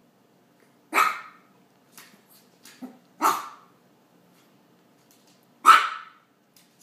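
A Chihuahua barking three times, short sharp yaps about two and a half seconds apart, with a few faint clicks in between.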